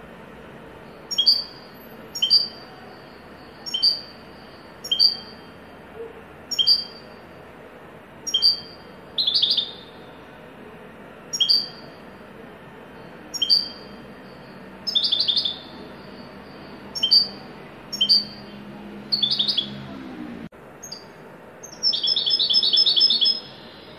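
European goldfinch song in the style the title calls 'haddadi' (blacksmith-like): short, sharp, high notes repeated about once a second, broken by quick trills, with a longer fast rattling trill near the end. A steady hiss runs underneath.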